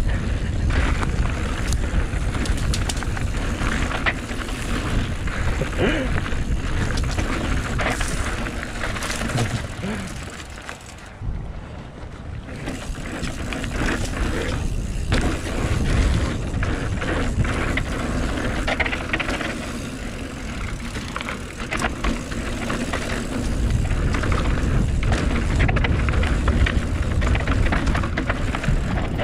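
Mountain bike ridden along a dirt trail: wind buffeting the microphone, tyre noise and rapid rattling clicks from the bike over bumps. It goes briefly quieter about eleven seconds in, then picks up again.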